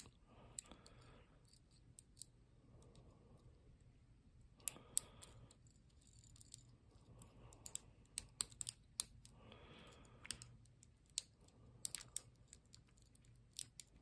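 Lock pick and tension wrench working the pin stack of a Lockwood 30mm padlock: light, irregular metallic clicks and ticks, a few at first and then in quick clusters through the second half. The picker feels some pins setting but gets no movement of the core, from a lock he believes has spool pins.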